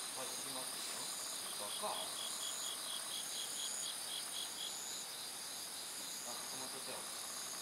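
Night insects chirping in several steady, shrill, overlapping layers. In the middle, one joins with a rapid pulsed chirp of about five or six notes a second for a couple of seconds.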